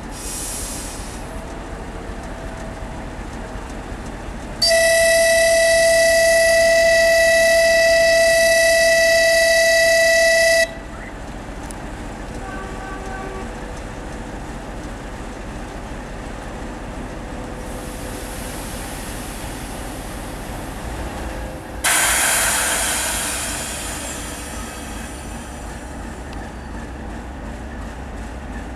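TEP70 diesel locomotive idling with a steady low rumble, then sounding one long horn blast of about six seconds on a steady chord, the signal before pulling out. About twenty-two seconds in, the engine's rumble rises and a sudden loud hiss breaks out and fades over a couple of seconds as the locomotive prepares to move off.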